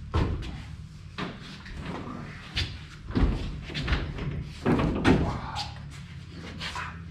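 Irregular clunks, knocks and rustling of car interior parts being handled and pulled out, a few of them louder thuds, over a steady low hum.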